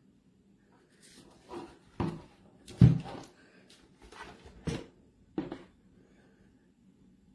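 Handling noises: about five separate knocks and clunks, the loudest a little under three seconds in.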